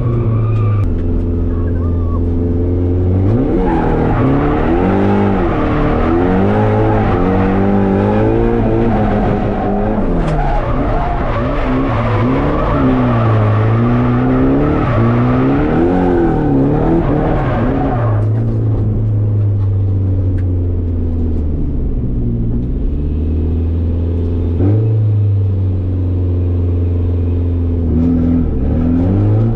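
Drift car's engine revving up and down over and over with tyre noise while drifting, then settling to a steadier, lower note about two-thirds of the way through with a few short dips.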